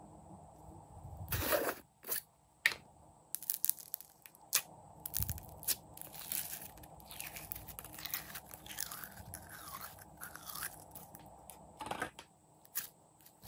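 Hands squeezing and kneading a glossy blue glitter slime: wet squishing with many irregular sharp clicks and crackling pops.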